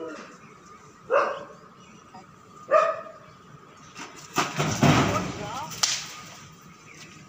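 A dog barks twice, short sharp barks a little under two seconds apart, then a louder burst of rustling noise runs for about a second and a half near the middle.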